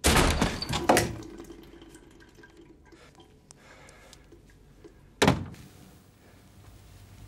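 Loud thuds and rattling over the first second as a bathroom door is pushed open, then a single sharp thud about five seconds in.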